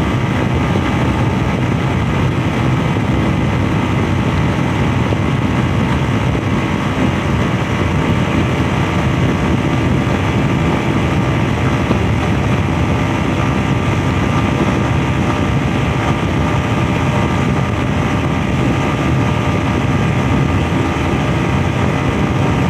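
Honda CG 125's single-cylinder four-stroke engine running steadily at cruising speed, mixed with wind noise on the microphone.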